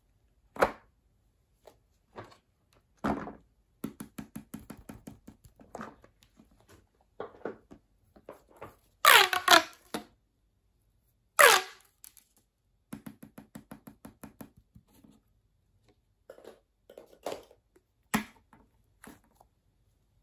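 Plastic pop tube toy being stretched and bent: runs of quick clicks as its ridges snap open one by one, and twice, near the middle, a loud zipping sound as it is pulled out fast. Scattered knocks from handling.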